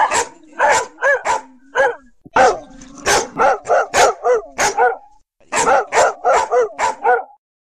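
A dog barking repeatedly in quick runs of short barks, about three a second, with a brief pause about five seconds in.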